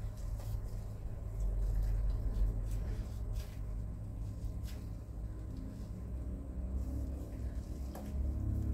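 Meatball paste being squeezed by hand and a metal spoon lightly clicking against a steel pot as raw meatballs are slipped into the water, a few faint clicks over a steady low hum.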